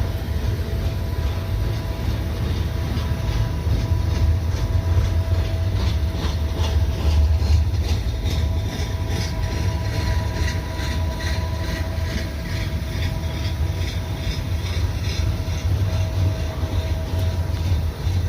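CN freight train passing, its wheels clicking in a steady rhythm over the rail joints above a heavy low rumble, heard from inside a car.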